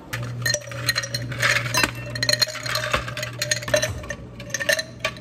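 Dishes and glassware clinking and knocking in quick succession, with a steady low machine hum that stops about four seconds in.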